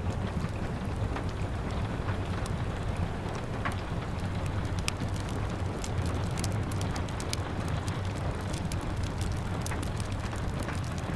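Rain falling steadily against a window, mixed with a wood fire crackling, its sharp pops and snaps coming several times a second over a steady low rumble.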